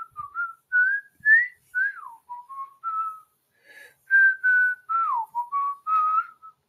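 A person whistling a tune: a string of short, clear notes that step up and down, some sliding downward, with a brief pause a little past the middle.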